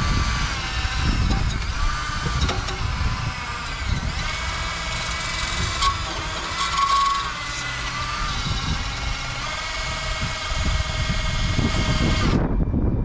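Electric drill with a wire wheel attachment running and scrubbing heavy rust off a seized suspension bolt. Its motor whine wavers in pitch as the brush loads up and eases off.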